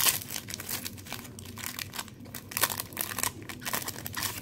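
Wax paper wrapper of a 1991 Pro Set football card pack crinkling as the pack is torn open by hand, in irregular crackles with a few louder ones.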